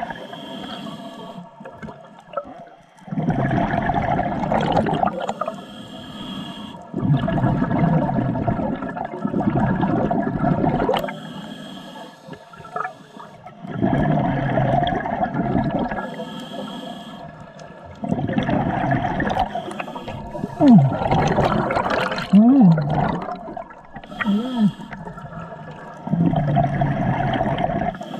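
Scuba diver breathing through a regulator underwater: quieter stretches of breathing in through the regulator alternate with loud rushes of exhaled bubbles, in a slow repeating cycle of a few seconds each. A few short squeaky glides in pitch come partway through.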